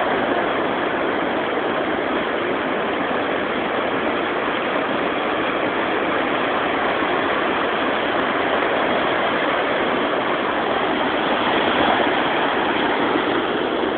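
Ocean surf breaking on a beach: a steady, even rush of waves and foam, swelling slightly near the end.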